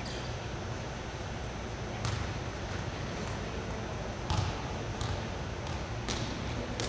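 Soccer balls being kicked and bouncing on a hard gym floor: four separate thuds, the loudest about four seconds in.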